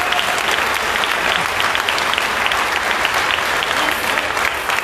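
A crowd applauding steadily, with dense clapping throughout.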